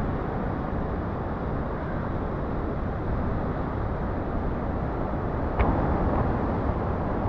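Steady rush of ocean surf and moving water around a waterproof action camera, with a single sharp knock about five and a half seconds in.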